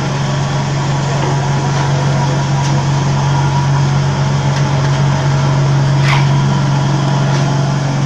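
Concrete vibrator table running with a steady low hum as it shakes wet concrete settling into paver moulds, with one short knock about six seconds in.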